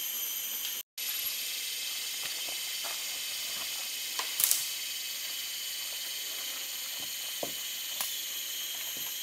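Steady, high-pitched chorus of rainforest insects, with a few faint clicks and a brief sharp crackle about four seconds in. The sound cuts out for a moment just before one second in.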